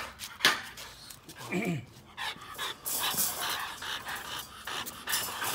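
Micro exotic bully puppies panting hard while they play and scuffle, with a sharp knock about half a second in and a short low vocal sound about a second and a half in.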